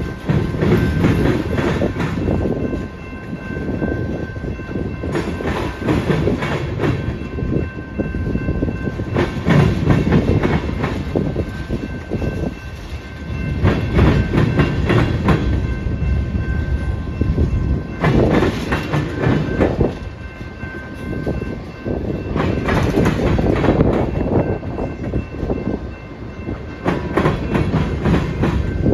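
Freight cars of a Union Pacific train rolling past, steel wheels clacking over rail joints in groups that swell about every four to five seconds over a steady rumble.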